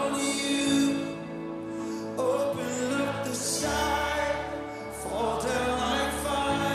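Live worship band music: electric guitar and keyboard playing under sung vocals.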